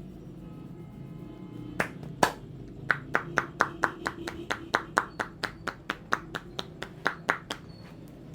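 Barber's hands giving a percussive tapping massage, sharp clapping slaps: two single slaps, then a fast, even run of about twenty at roughly four or five a second.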